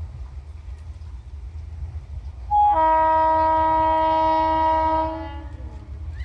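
Electric locomotive air horn of a WAP-4 hauled express train sounding one loud held blast of about two and a half seconds, starting with a brief higher note and trailing off with a falling pitch. A low rumble runs underneath.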